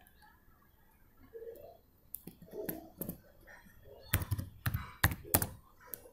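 Computer keyboard typing: a few scattered keystrokes, then a quick run of sharper key clicks about four seconds in.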